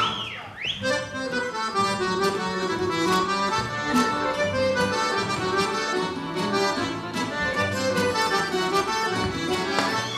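Accordions playing a Banat folk dance tune, with occasional sharp knocks.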